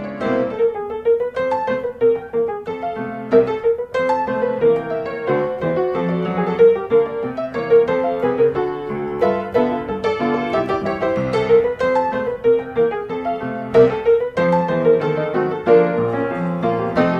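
Background music led by piano: a light, bouncy tune of quick repeated notes.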